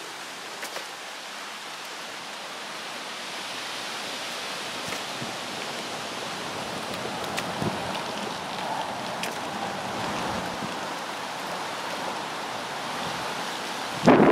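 Steady outdoor rushing noise that swells a little through the middle, with a few faint clicks and a sudden loud bump near the end.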